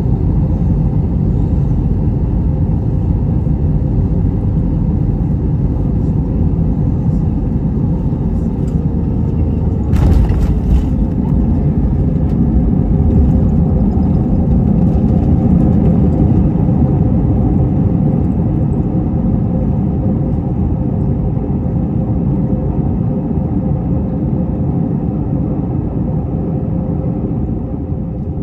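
Cabin noise of an Airbus A321-200 airliner landing: a steady rumble, then a sudden jolt about ten seconds in as the wheels touch down. A roar swells for several seconds as the jet decelerates on the runway, then slowly eases.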